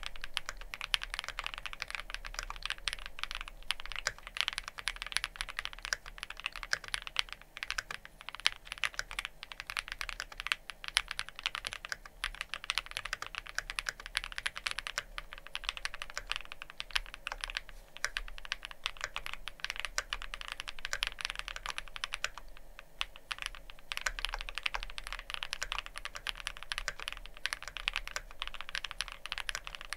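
Fast, continuous typing on a Wuque Studio Freya Ultra custom mechanical keyboard: factory-lubed Kaocera Cupid linear switches under GMK Tenshi ABS keycaps, in a spring- and gasket-mounted case with an aluminium outer and polycarbonate inner plate. A short pause in the keystrokes about three-quarters of the way through.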